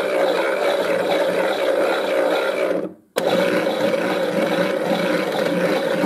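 Zanussi Auto K2214 toy washing machine's small electric motor running with a steady drone. It dies away about halfway through and starts again abruptly a moment later.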